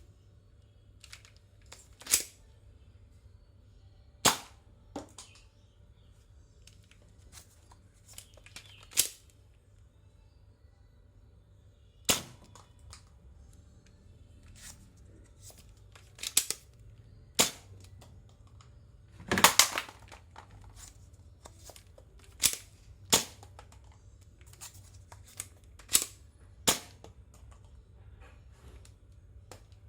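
Nerf blaster firing foam darts: sharp single pops at irregular intervals, about a dozen, with a quick cluster of shots about two-thirds of the way through.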